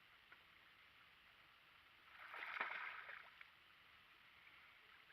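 Near silence, broken about two seconds in by a brief slosh of water lasting about a second.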